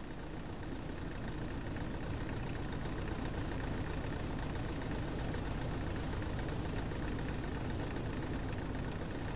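Steady, low engine rumble of a cartoon icebreaker ship under way, running evenly.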